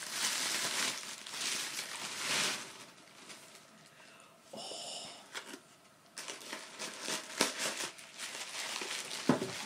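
Tissue paper crinkling and rustling as it is handled and pulled apart, in close-up ASMR style. There is a quieter lull near the middle, with a brief high tone about halfway through, and then more crackly crinkling.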